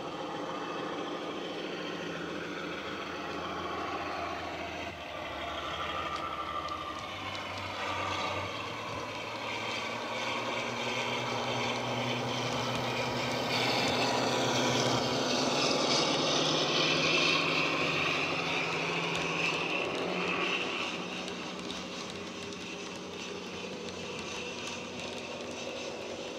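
Dapol Class 52 'Western' model locomotive's DCC sound: an SWD Western sound file on a LokSound 5 decoder, played through an EM2 speaker, giving the running note of the real loco's twin Maybach diesel engines. It grows louder as the model passes close by about halfway through, then eases off as the coaches follow.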